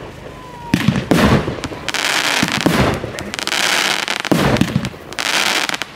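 Aerial fireworks going off: several loud bangs of shells bursting, with a long crackling hiss of falling stars between them.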